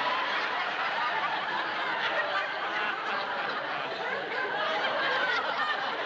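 Studio audience laughing, many voices at once in a sustained wave of laughter.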